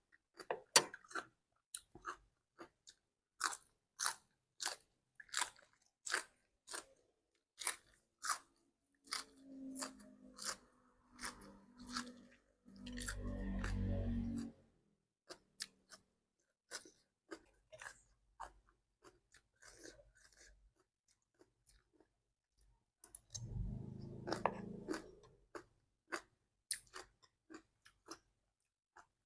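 Close-up eating sounds: a person chewing crunchy raw vegetables, with sharp crisp crunches about two a second. There are two longer, louder, muffled stretches, one around the middle and one near the end.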